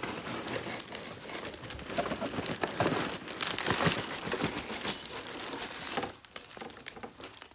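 Sealed plastic bags of Lego bricks and the cardboard box crinkling and rustling as the set's box is emptied, loudest in the middle and dying away near the end.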